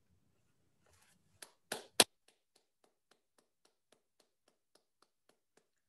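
Hand clapping: a few sharp claps about a second and a half in, then faint, evenly spaced claps at about four a second.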